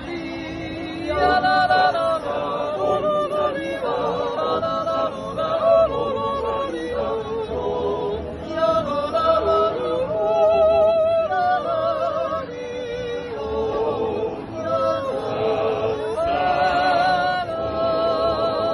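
Swiss yodel choir of men and women singing a cappella in several parts, with long held chords.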